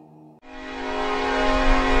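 Soft background music cuts off, and a train horn sounds one long, sustained blast that swells louder, over the low rumble of the moving train.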